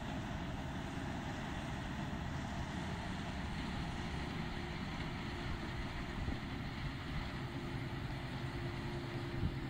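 Claas combine harvester running steadily while harvesting: its engine and threshing machinery make a dense, continuous noise. A steady hum stands out more plainly in the second half.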